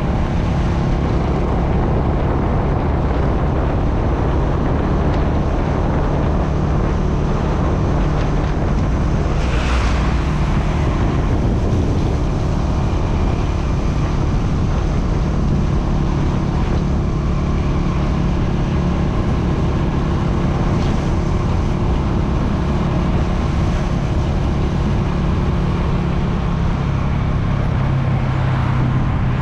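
Motorbike engine running steadily while riding through city streets, with wind noise on the microphone and traffic around. A short louder burst of noise comes about ten seconds in.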